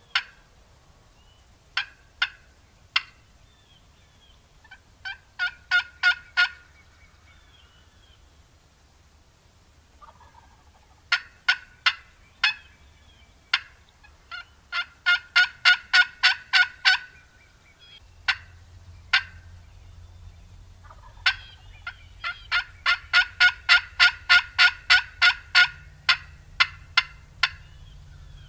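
A hunter's turkey call worked aggressively, imitating a hen: sharp single clucks and cutts, then long runs of yelps at about five notes a second. The notes are loud and close.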